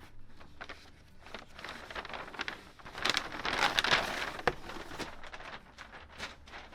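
Cardboard box and packing material being handled, rustling and crinkling with small knocks, loudest about three to four seconds in, with a sharp knock soon after.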